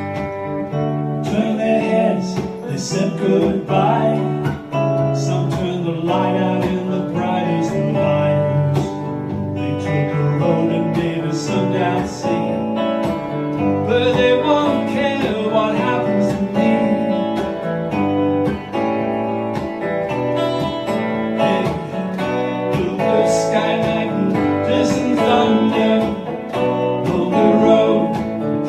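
A man singing to his own Telecaster-style electric guitar accompaniment. The guitar plays on its own briefly, then the voice comes in about a second in.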